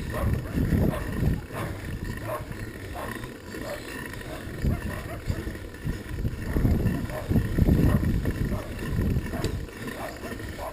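Gusty wind buffeting on the microphone while riding, a low uneven rumble that swells and fades, loudest a little after halfway.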